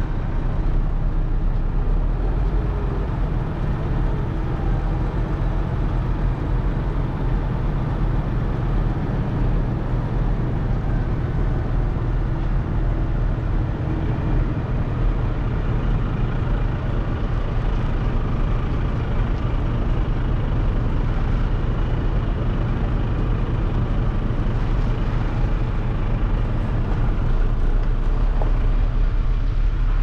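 Renault lorry's diesel engine running steadily as the truck creeps across a yard, heard from outside the cab as a constant low drone.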